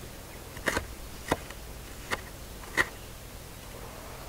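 Chef's knife chopping fresh parsley on a wooden cutting board: about five separate chops, spaced roughly half a second to a second apart.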